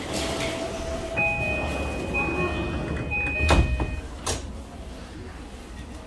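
JR East E235-series train's sliding doors closing: a door chime beeps for about three seconds, then the doors shut with a loud thud about three and a half seconds in, followed by a lighter knock.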